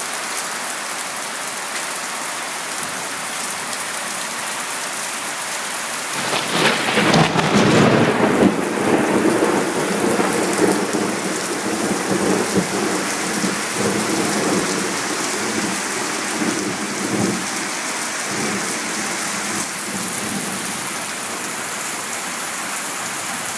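Steady heavy rain, then a thunderclap about six seconds in that crashes loudly and rolls on as rumbling thunder for about ten seconds before fading back under the rain.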